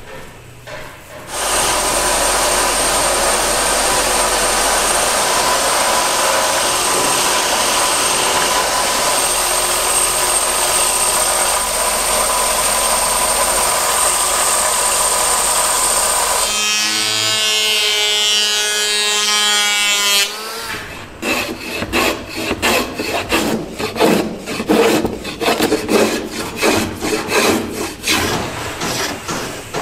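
Belt sander running steadily with a high whine as a curved wooden blade blank is pressed against the belt; about sixteen seconds in, the motor is switched off and spins down. Then a hand rasp scrapes quickly along the wood, about three or four strokes a second.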